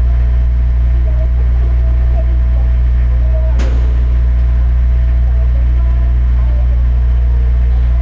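Twin GE CF34-10E turbofans of an Embraer 190 airliner running in the distance: a steady deep rumble with a thin, steady whine above it. A single sharp click about three and a half seconds in.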